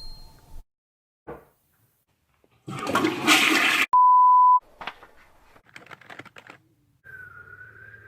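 A string of short, unrelated sound effects: a brief burst, then a loud rushing noise of about a second, a steady half-second beep, a run of clicks, and from near the end a wavering tone over a low hum.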